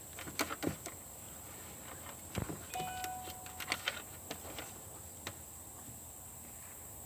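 A dog's claws scratching and tapping on a car's rear body panel in two short flurries, about half a second in and again from about two to four seconds in. A brief high steady tone sounds in the middle of the second flurry.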